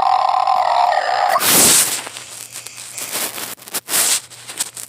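Toy voice changer's speaker holding a steady buzzy tone that cuts off about a second and a half in. A loud rush of noise follows, then a few short crackling, rustling noises.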